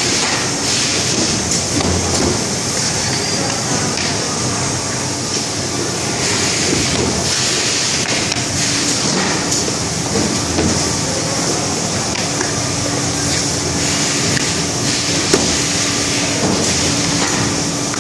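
Semi-automatic box-making production line running: continuous machine and conveyor noise with a steady hiss and hum, dotted with small mechanical clicks and knocks, and one sharp knock about three-quarters of the way through.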